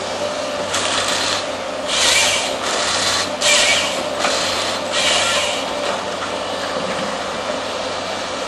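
AFM 58 Husky harvester head at work on a Volvo excavator. The excavator's engine runs steadily under it, and the head makes three loud, short bursts of noise about two, three and a half, and five seconds in.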